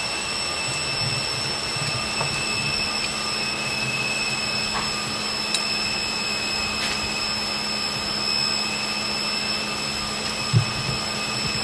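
Steady roar of shipboard engineering-space machinery on a steam frigate underway, with a constant hum and thin steady whines. A few small metal clicks and one short knock about ten and a half seconds in come from hand work on the blower's thrust bearing parts.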